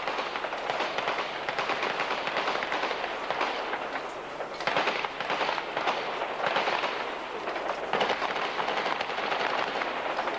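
Automatic gunfire crackling in repeated bursts, with louder clusters about halfway through and again near the end.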